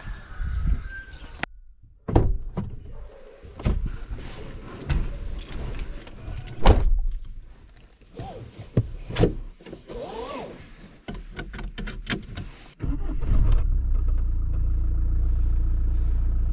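Clicks and knocks of someone getting into an SUV and settling in the driver's seat, followed about 13 seconds in by a Mahindra Scorpio's engine starting and idling with a steady low rumble.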